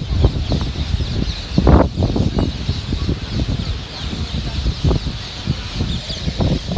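A flock of parrots chattering and screeching in a continuous high din, with loud irregular low rumbling thuds over it that are the loudest part of the sound.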